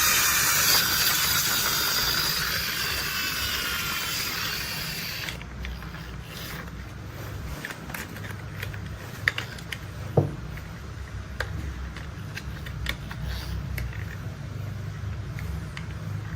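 Plastic toy construction vehicle being handled: a hiss fades and cuts off about five seconds in. Scattered small clicks and taps of its moving parts follow over a low rumble, with a sharper knock about ten seconds in.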